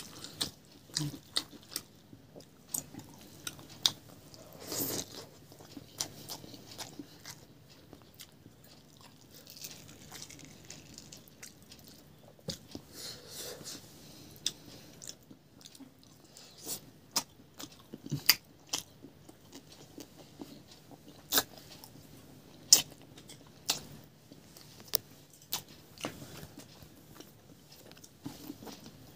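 A person eating with their hand, chewing and crunching close to the microphone, with many sharp mouth clicks and crunches at irregular intervals.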